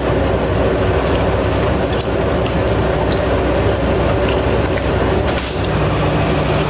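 Steady rumble and hum of a vehicle in motion, with a few faint clicks.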